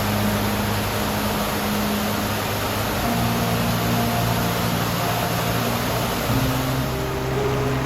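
Steady rush of falling water from a waterfall cascade, under soft background music of held low notes that change pitch twice.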